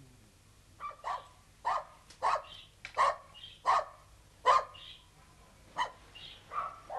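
A dog barking: about nine short, sharp barks in a row, roughly two-thirds of a second apart, with a brief pause partway through.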